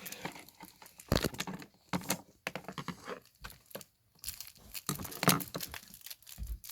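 Packaging crinkling and tearing in irregular bursts as a mochi squishy fidget toy is unwrapped.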